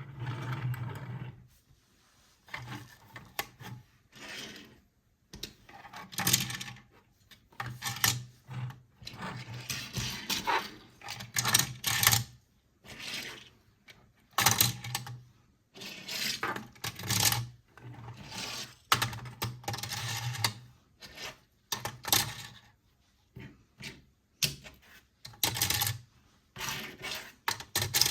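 Plastic toy parts being handled and worked: a string of short clicks, clatters and rubbing sounds in quick bursts with brief pauses between them.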